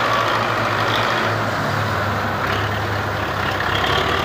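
Belarus tractor's diesel engine running hard under load, pulling a fully loaded trolley stuck in sand, with a steady low drone.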